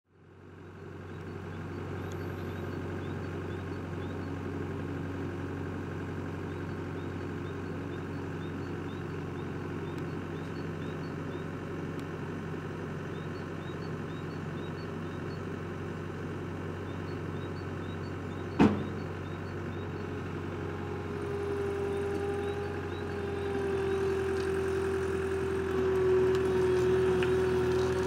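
Takeuchi TCR50 tracked dumper's diesel engine running steadily, with one sharp knock about two-thirds of the way through. In the last quarter a steady whine comes in and the engine grows louder.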